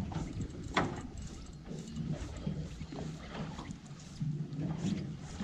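Water slapping against the hull of a fishing boat on the open sea, over a low uneven hum, with one sharp knock about a second in.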